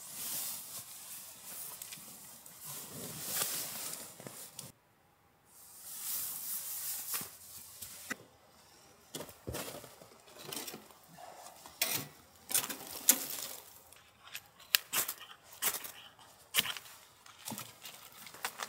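Soft rustling, a short break about five seconds in, then scattered sharp clicks, clinks and scrapes from a small titanium wood stove being carried and handled. The loudest come about two-thirds of the way through.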